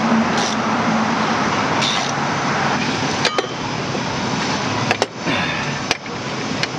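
Steady background noise of road traffic, with a few sharp metallic clicks and clinks from about three seconds in.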